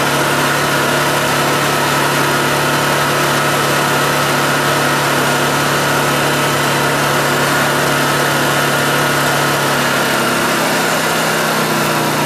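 Honda EU2000i inverter generator's single-cylinder four-stroke engine running steadily on propane, held at a raised speed.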